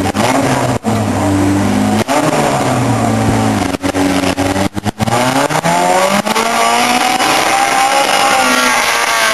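A Mini's engine revving up and down repeatedly, its pitch rising and falling several times, with a few brief cut-outs. In the last few seconds it climbs to a higher note that rises and then falls.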